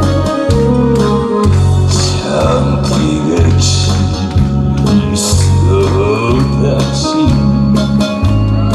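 Trot backing track playing its instrumental intro: a steady bass beat with a melody line over it.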